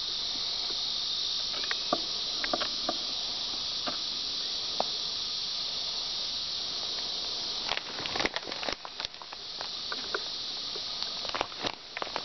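Steady, high-pitched buzzing drone of a summer insect chorus. From about eight seconds in, irregular crackling and rustling of dry leaves and brush joins it as someone pushes through undergrowth.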